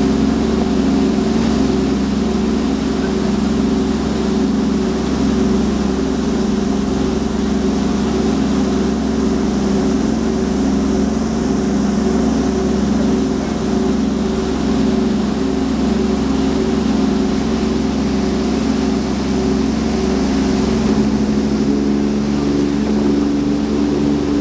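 The twin diesel engines of a large party fishing boat droning steadily under way, with the hiss of water churning in the wake. The engines' pitch shifts slightly near the end.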